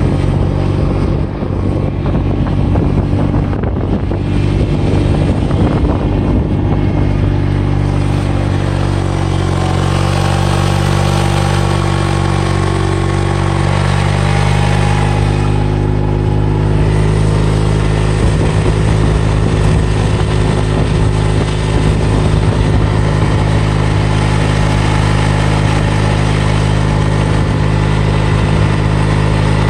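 Kubota's engine running at a steady speed as it drives along, its note holding even throughout.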